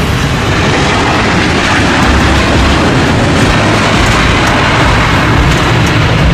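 Boeing 787 twin-engine jet airliner touching down and rolling out on the runway, its engines giving a loud, steady rushing noise that swells a little about two seconds in.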